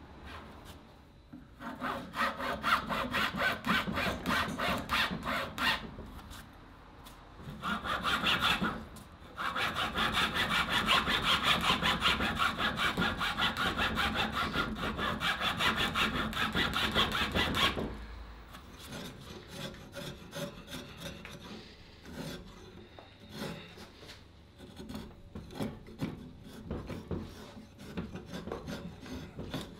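Hand tool sawing or rasping a cabreuva wood blank in rapid back-and-forth strokes. The strokes come in spells, with the loudest long run in the middle, then turn lighter and scratchier near the end.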